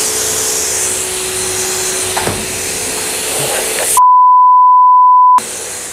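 Coin car wash high-pressure lance spraying water onto a van's side: a steady hiss with a steady hum underneath. About four seconds in, a loud steady beep tone cuts in for about a second and a half and blanks out all other sound, then the spraying hiss returns more quietly.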